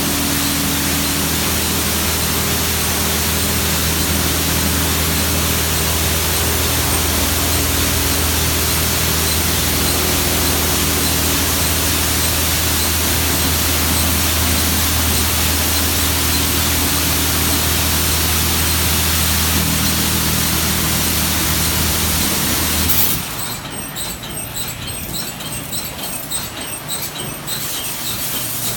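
Jim Coleman WaterWizard 1.0 automatic car wash running a cycle: a steady loud rush over a low motor hum, which cuts off abruptly about 23 seconds in, leaving a quieter, fluttering hiss.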